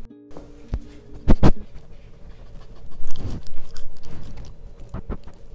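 A dog mouthing and chewing on a small handheld microphone held to its face, heard right at the mic. Two loud knocks of teeth on the mic come about a second and a half in, followed by a longer bout of chewing around three to four seconds.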